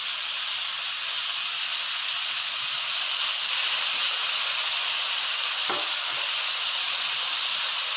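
Vegetables frying in oil in a pan, a steady sizzle that holds at an even level throughout.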